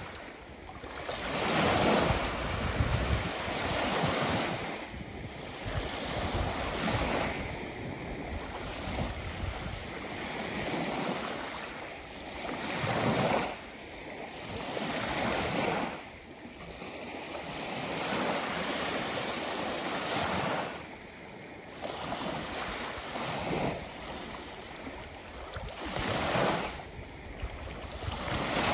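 Sea waves breaking and washing in. The surf swells and falls back every few seconds, loudest about two seconds in and again near the end.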